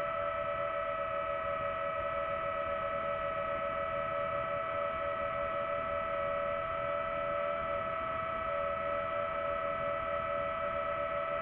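DJI FPV drone's motors and propellers running with a steady whine that holds its pitch throughout, over a low rumble.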